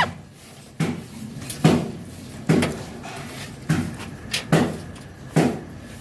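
A series of short, dull knocks, roughly one a second, like something hard tapping on wood or metal.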